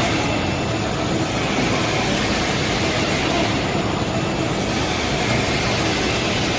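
Snack coating line machinery running: a steady mechanical din with no distinct beat.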